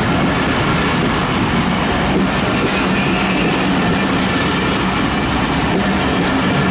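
PT INKA passenger coaches rolling past at close range: steady, loud rumble and clatter of wheels and bogies on the rails, with a steady low hum underneath.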